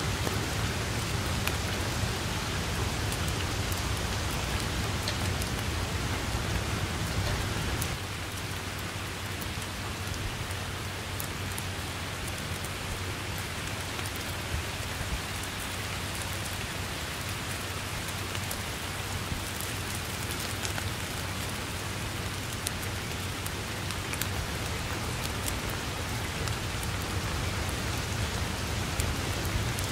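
Steady rain falling on tall grass and a leafy tree, with scattered close drops ticking. A low rumble underneath eases off about eight seconds in.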